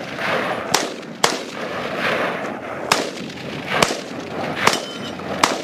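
AR-style rifle fired six times in single shots at an uneven pace, each sharp crack trailing off in a short echo.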